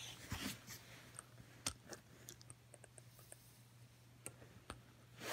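A few faint, irregular clicks and taps of a small die-cast Hot Wheels mini monster truck being handled and picked up off a tabletop.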